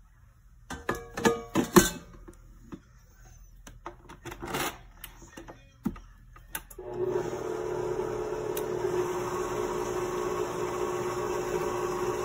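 Metal clanks as the stainless steel bowl and wire whip are fitted to a HOWORK SM-1510 electric stand mixer, then a click from the speed knob. About seven seconds in, the mixer's motor starts and runs at a steady hum, the whip turning in the empty bowl.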